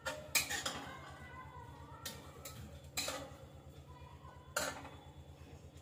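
Metal spoon clinking and scraping against a steel kadai and plates while food is served, in a few separate clatters, the loudest about half a second in. A steady low hum runs underneath.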